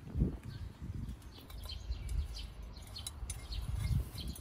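Small birds chirping in short repeated calls, over a low rumble with a few dull thumps.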